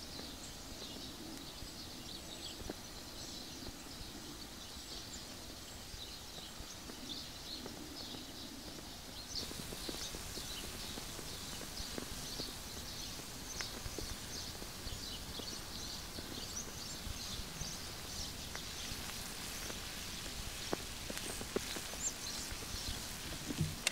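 Water heating in a metal camping mug over a small stove: fine ticking as it comes to the simmer, becoming a denser, louder bubbling at a rolling boil about ten seconds in.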